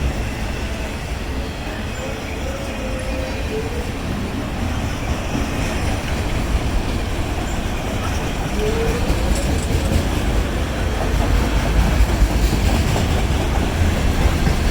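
Freight train cars rolling past on the rails, a steady rumble and clatter of wheels that grows a little louder near the end.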